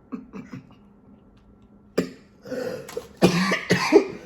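A woman coughing: a sharp first cough about two seconds in, then a run of several harsh coughs.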